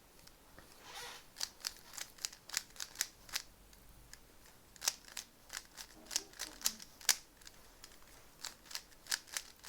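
A Rubik's Cube being twisted by hand: the plastic layers click sharply as they turn, in quick runs of clicks with short pauses between them.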